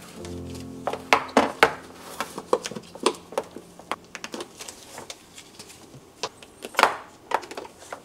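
Lidded food-storage containers and trays handled on a kitchen countertop: a run of irregular knocks and clicks as containers are set down and lids taken off, the loudest knock about seven seconds in.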